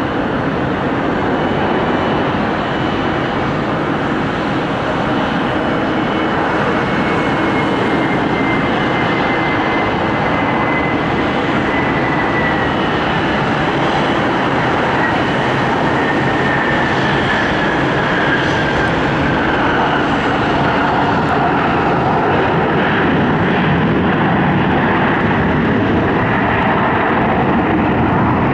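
Boeing 737-300 airliner's CFM56 turbofan engines on approach, touchdown and rollout: a steady jet roar with a thin whine that slowly falls in pitch over several seconds.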